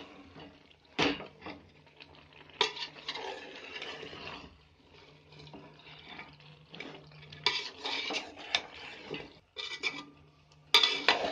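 Steel spoon scraping and clanking against a metal pot while cauliflower is stirred into a masala, with several sharp knocks of the spoon on the pot.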